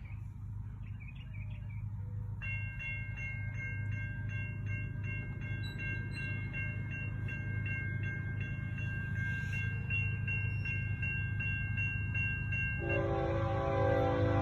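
Railroad grade-crossing warning bell ringing steadily, about two to three strokes a second, over a low rumble that slowly grows louder as a train approaches. Near the end the lead locomotive, a BNSF ES44C4, sounds its horn for the crossing.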